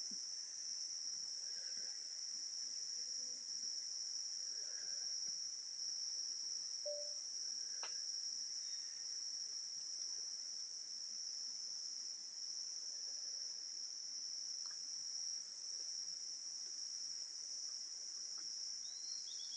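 Crickets trilling steadily in a continuous high-pitched chorus.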